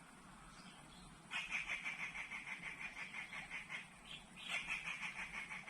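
An animal call: a rapid, evenly pulsed high trill, heard twice, each lasting about two seconds.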